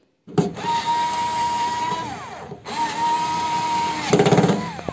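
Cordless mini screwdriver driving terminal screws: its motor whines steadily in two runs, the first sagging in pitch as it slows. A brief burst of rapid clicking near the end is the loudest part.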